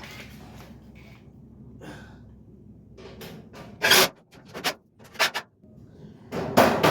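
Sharp knocks and clanks of metal grill parts being fitted together: a few single strikes about halfway through, then a quicker run of knocks near the end.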